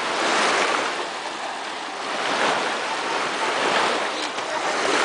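Small lake waves washing in and breaking in the shallows, a steady hiss of water that swells and eases every second or two.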